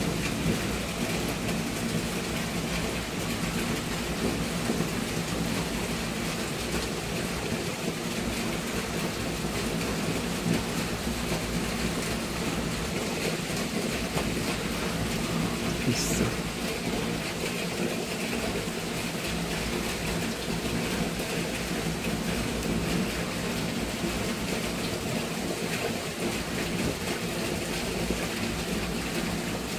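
Heavy thunderstorm rain pouring down in a steady, even hiss. A brief high squeak cuts through about halfway.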